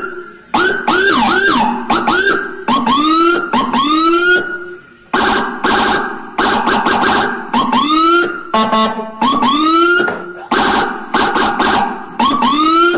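Whelen HHS electronic police siren being switched through its tones: short rising whoops that swoop up and drop off, broken by stretches of rapid high-low warbling and a brief buzzy steady tone, the pattern changing every second or two.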